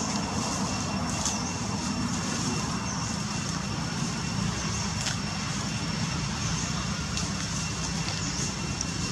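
Steady outdoor background noise: a low rumble with a faint, steady high whine above it.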